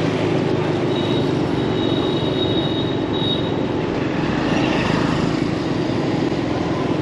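Steady city street traffic, with vehicle engines running close by. A faint high tone comes and goes about one to three seconds in.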